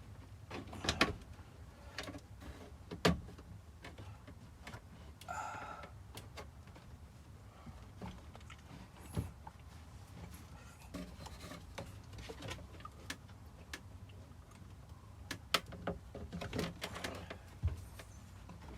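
Plastic interior trim and the centre console of a Honda Civic being fitted back into place by hand, with irregular clicks and knocks as the pieces are pushed and seated.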